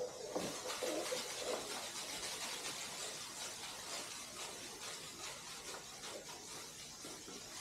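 Garden hose spraying water onto an asphalt driveway: a steady hiss of the spray hitting the pavement, with a few short squeaks in the first second or so.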